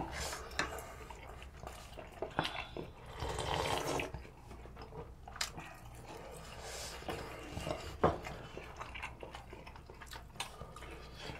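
Soft eating sounds at a meal table: broth being sipped from a bowl and chewing, with a few light clicks of a bowl or utensils.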